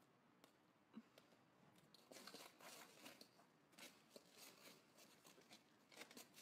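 Near silence with faint, scattered crunches and rustles.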